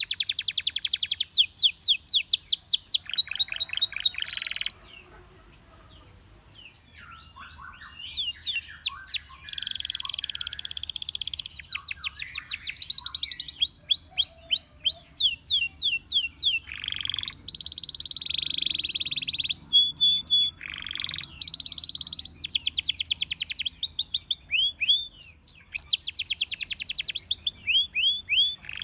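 Canary singing: fast trills of rapidly repeated high notes in varied runs, with a pause of a couple of seconds about five seconds in before the song resumes.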